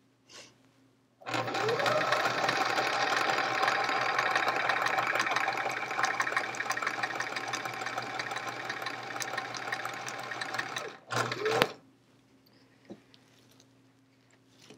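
Sewing machine stitching a seam through patchwork while piecing half-square triangles. The motor speeds up about a second in, runs steadily for about ten seconds and stops, then runs again briefly for a short burst of stitches.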